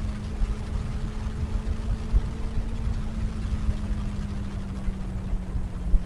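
Wind buffeting the microphone of a moving motorcycle, louder than the Benelli BN600i's inline-four engine note, which runs steadily underneath and slowly drops in pitch.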